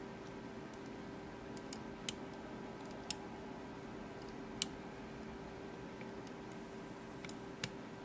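Sparse faint metallic clicks of a dimple pick working the pins in a Mul-T-Lock C-13 padlock's pin-in-pin dimple cylinder, about four sharper clicks among smaller ticks, over a steady faint hum.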